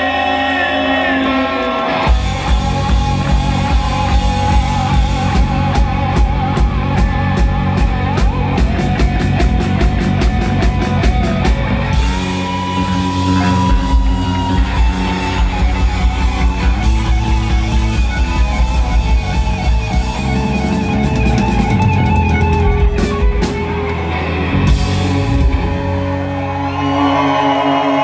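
Live rock band playing loudly: electric guitars, bass guitar and drum kit, with the full drum beat coming in about two seconds in.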